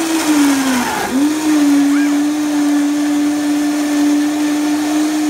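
Countertop blender running, blending bananas, blueberries, goji berries, grated coconut and water into a smoothie. The motor pitch drops and briefly breaks about a second in, then holds steady until it stops at the end.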